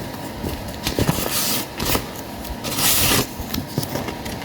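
Packaging being handled while a parcel is unboxed: irregular rustling and scraping with a few clicks, and two louder swishes about one and three seconds in.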